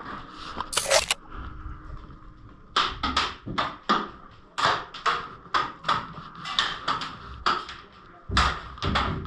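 Footsteps at walking pace, short sharp knocks about two to three a second on a hard floor in a small room, after a brief sharp noise about a second in.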